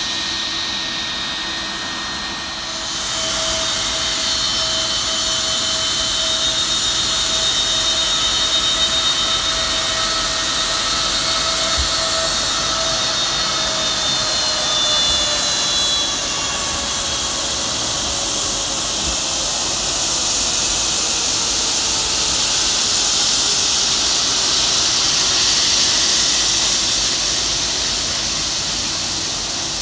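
Boeing 757-200 jet engines at taxi power: a loud, steady jet whine and hiss that swells a couple of seconds in. From about halfway through, the whine's pitch slowly falls.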